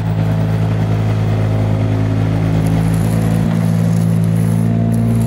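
Tractor engine idling, a steady low drone that cuts in suddenly and holds unchanged. It is a dubbed engine sound effect, not a sound from the toy itself.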